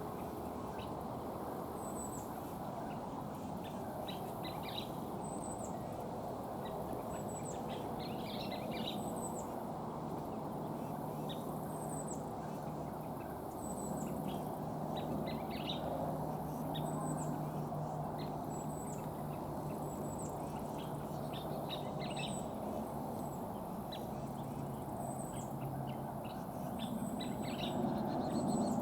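Scissor-tailed flycatchers calling: short, high, hooked notes every second or two, mixed with bursts of sharp chattering, an alarm reaction to a nearby American kestrel. A steady low rumble runs underneath, with a low hum through the middle of the stretch.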